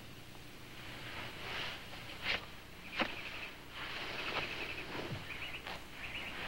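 Outdoor ambience of faint, repeated high chirping, with two short sharp knocks about two and three seconds in.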